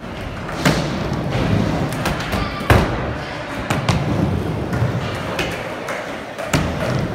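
Skateboard riding a wooden mini ramp: the urethane wheels rumble on the ramp surface, broken by several sharp clacks and thuds as the board strikes the deck and the metal coping, a loud one shortly into the run and another a little under three seconds in.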